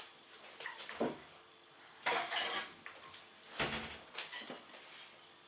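Kitchenware clattering as a cutting board is taken out and handled: a knock about a second in, a longer rattling clatter around two seconds, then a heavier thump and a few small clicks.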